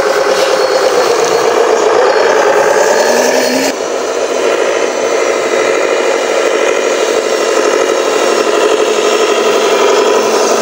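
Radio-controlled dump truck running: a steady engine-like drone with rattling. The sound changes abruptly about four seconds in.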